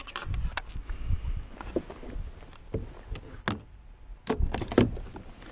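Irregular light knocks and clicks on a plastic fishing kayak, with a low rumble, while a pike is held in the water and released by hand over the side.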